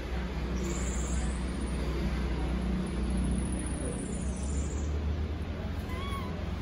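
Steady low rumble of background noise, with one short, high, rising-and-falling coo from a baby macaque near the end.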